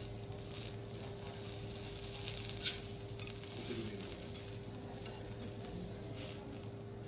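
Food sizzling quietly on a teppanyaki griddle over a steady low hum, with one sharp metallic tap about two and a half seconds in.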